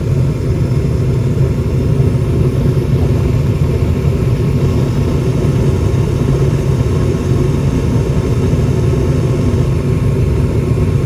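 Goodman gas furnace running with its burners lit and blower on: a steady low rumble.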